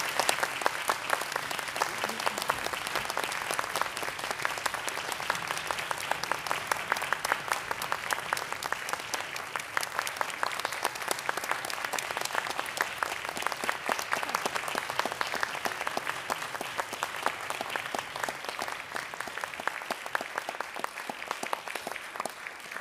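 Audience applauding steadily after the concerto ends, a dense stream of clapping that slowly thins and fades over the last few seconds.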